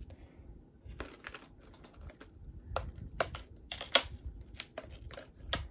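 Jewelry being handled: beads and chain clicking and clinking together in light, irregular clicks, one sharper click a little before four seconds in.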